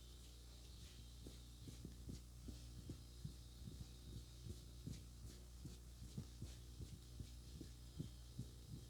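Faint, muffled hand taps of a head massage, about three or four a second in an uneven rhythm, starting about a second in, over a steady low hum.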